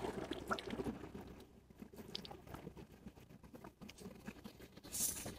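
Faint, scattered small crunches and clicks of footsteps on wet stones and mud at a river's edge, with a brief rustle near the end.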